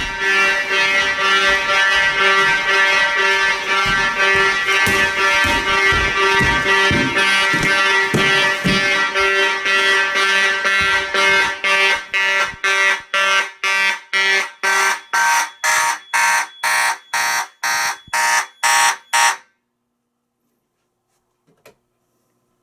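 Fire alarm horns (an Edwards 892-2B and a Simplex 2901-9806) sounding a march-time code at about two pulses a second, very loud. They cut off abruptly about 19 seconds in, followed by a couple of faint clicks.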